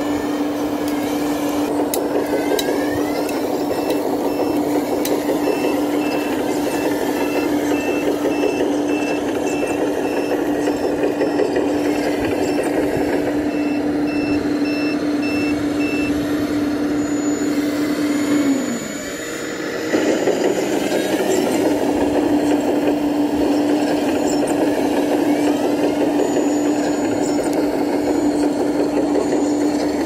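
Radio-controlled scale model Caterpillar bulldozer running, with a steady mechanical hum and track clatter. A reversing alarm beeps in an even pulse through much of the first half. The hum drops away for a moment about two-thirds through, then picks up again.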